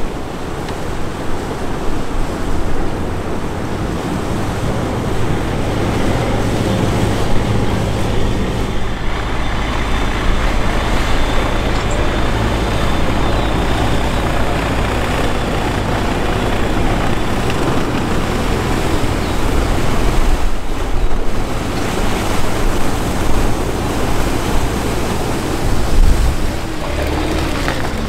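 Sherp amphibious vehicle's diesel engine running steadily as its huge tyres churn through water, with continuous splashing and spray.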